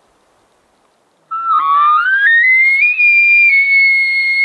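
Bull elk bugle blown on a call: a single whistle that starts about a second in, climbs from a low note to a high, piercing pitch and holds it steadily.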